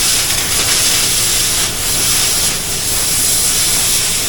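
Oxy-fuel cutting torch hissing steadily as it cuts through a rusty steel car rim, the hiss dipping briefly a few times.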